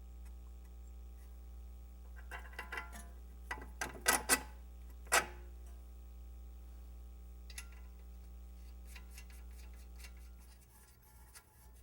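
Metal clinks and knocks as the bottom of a new strut is fitted to the steering knuckle and the lower bolts are pushed in by hand, a tight cluster of sharp knocks in the middle followed by a few lighter ticks, over a steady low electrical hum.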